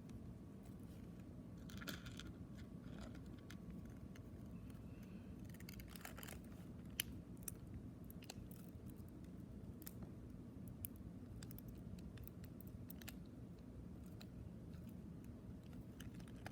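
Faint, scattered clicks and small taps of a compact cassette's plastic shell and hub being handled, as the leader tape is worked back into its hub clamp, over a steady low hum. One sharper click comes about seven seconds in.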